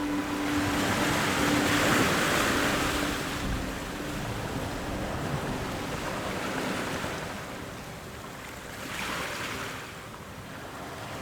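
A rushing noise that swells and fades twice, like surf washing in, with faint sustained music tones underneath that fade out in the first few seconds.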